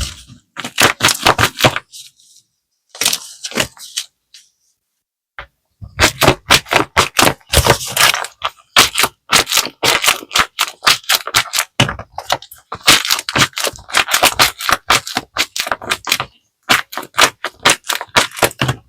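A handmade paper squishy being squeezed and kneaded by hand, its paper crackling and crinkling in quick runs of sharp crackles. There are short pauses between squeezes, then a long unbroken stretch of crinkling through the middle.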